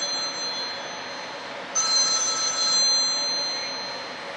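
Telephone ringing: repeated rings about three seconds apart, each a high ringing tone that fades away. One ring dies out about a second in and the next starts just before two seconds in.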